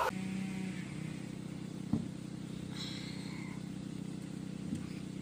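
Tractor engine idling steadily, with a single sharp knock about two seconds in and a few faint bird chirps.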